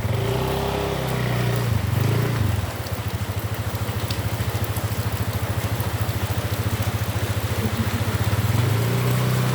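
A small engine running close by. Its pitch and loudness shift for the first two and a half seconds, then it settles into a steady, fast, even putter. The hiss of heavy rain runs underneath.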